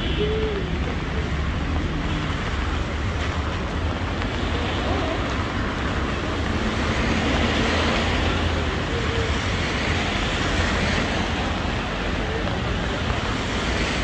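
Steady city street traffic noise in the rain: a continuous hiss over a low engine rumble. The hiss swells for a few seconds around the middle.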